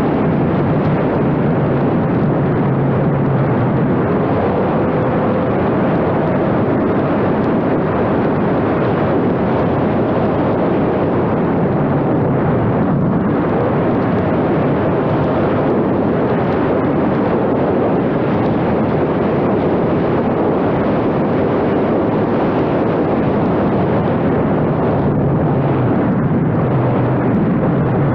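Steady loud rush of wind over a camera mounted on a flying RC model airplane, with the faint hum of its motor and propeller shifting a little in pitch.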